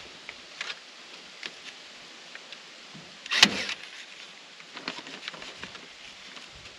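Light crinkling and clicks of housewrap being handled and pressed against the wall, with one loud, sharp stapler shot about three and a half seconds in, fastening the wrap.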